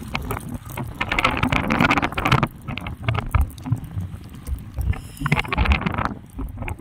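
Spinning rod and reel being worked while a hooked fish is reeled in: handling clicks, with two louder rushing stretches about a second in and near the end.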